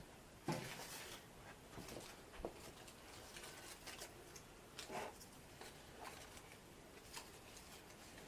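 Faint rustling and light clicks of wired artificial Christmas picks being bent and tucked into place, with a slightly louder rustle about half a second in.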